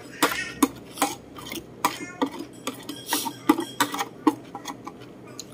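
Metal spoon scraping and clinking on a ceramic plate, a quick irregular run of clicks and short scrapes as the last bits of food are gathered up.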